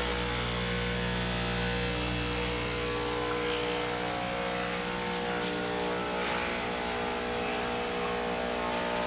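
Techno-Gaz Andromeda tabletop autoclave's water pump running steadily, filling the machine's water tank, with a constant buzzing hum.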